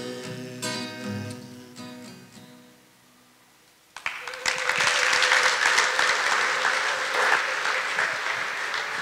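Acoustic guitar strumming its last chords, which ring out and fade away, then a short hush and the audience applauding from about four seconds in.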